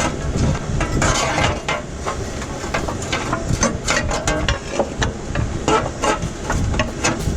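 Hand tools and bolts clinking and tapping against the metal engine-mount bracket: an irregular run of short metallic clicks and knocks.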